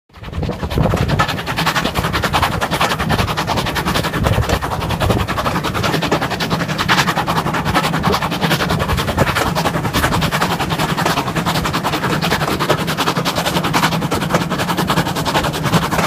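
Steam locomotive working at speed, its rapid exhaust beats heard from an open carriage window behind it, over a steady low rumble of the moving train.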